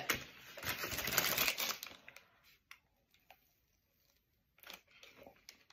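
Paper wrapper around a Rice Krispie treat crinkling and rustling as the treat is handled, for about two seconds. Then it goes almost quiet, with a few faint clicks of biting and chewing.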